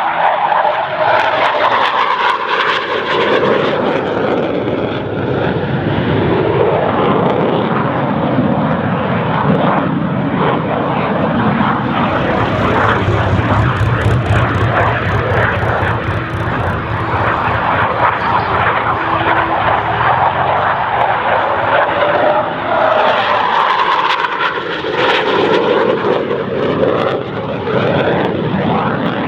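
BAE Systems Hawk 127 jet trainer's Rolls-Royce Turbomeca Adour turbofan, loud throughout a display pass. The pitch slides as the jet sweeps past near the start and again about 24 seconds in, with a deep rumble in between.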